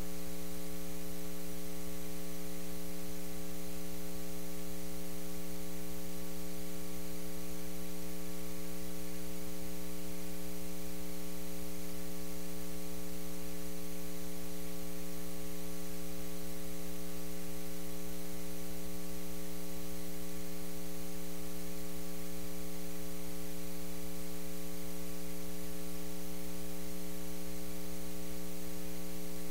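Steady electrical mains hum and buzz with a layer of hiss on the sound system's audio feed, unchanging throughout.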